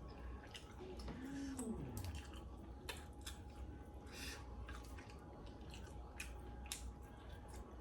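Close-up chewing and wet lip-smacking of someone eating sauced chicken wings, heard as a scatter of sharp mouth clicks. About a second in there is a brief low hum that rises and then falls.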